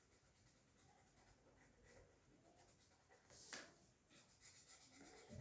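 Faint scratching of a marker pen colouring in on paper, with one sharper scrape about three and a half seconds in and quick short strokes after it.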